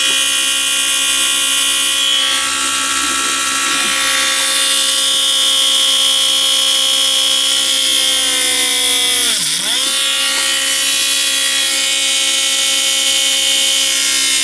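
Small Drill Master rotary tool running with a steady high whine as it drills a hole through a polymer clay bead. About nine seconds in, the motor briefly slows, its pitch dropping sharply, then picks back up.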